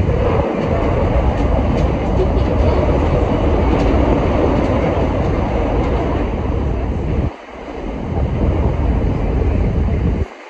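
CTA Pink Line rapid-transit train running at speed, heard from inside the car: a loud, steady rumble of wheels on rail. The rumble dips sharply about seven seconds in, then builds again, and falls off near the end.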